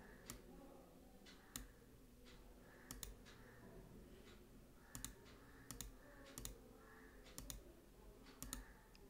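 Faint scattered clicks of a computer keyboard and mouse, one every second or so, several coming in quick pairs.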